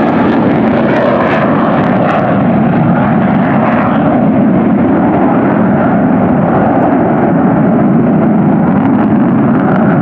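Panavia Tornado IDS's twin RB199 turbofans running in afterburner as the jet climbs away: a loud, steady jet roar. Its high hiss fades over the first couple of seconds as the aircraft recedes.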